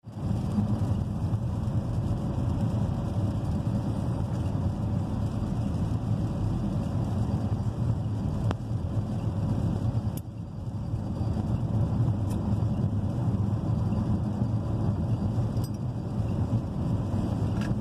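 Road noise inside a Chevrolet car driving on a rain-wet road: a steady low rumble of tyres and engine that eases briefly about ten seconds in, with a few faint clicks.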